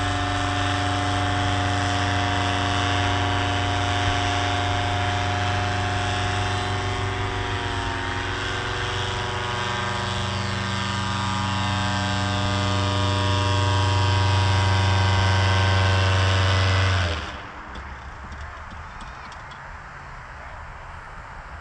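Powered paraglider's engine and propeller running steadily overhead, a continuous hum with a brief dip in pitch about eight seconds in and growing louder later on. It cuts off suddenly near the end, leaving faint background noise.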